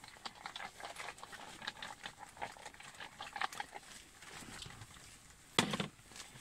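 Chopped carrot pieces tumbling from a bowl into a cold cast-iron kazan onto layered meat and onion: an uneven patter of small clicks and taps for about four seconds, with no sizzle. Near the end comes one short, louder thump.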